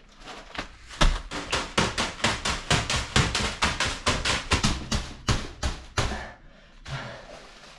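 Graham crackers in a plastic bag being struck repeatedly by hand against a sofa cushion to crush them, about four crunching hits a second. The hits stop about six seconds in, leaving quieter rustling of the bag.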